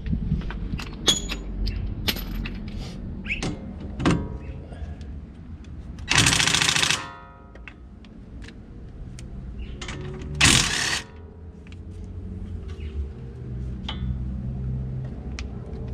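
Impact wrench (rattle gun) hammering in two bursts of about a second each, some four seconds apart, undoing the front brake caliper bolts. Short metallic knocks and clicks of tools on the hub between the bursts.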